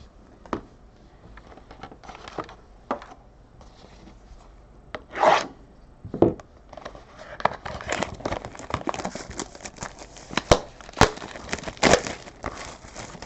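A sealed trading-card box's packaging being torn open and crinkled, with scattered clicks and knocks from handling; the crinkling turns dense from about halfway through until shortly before the end.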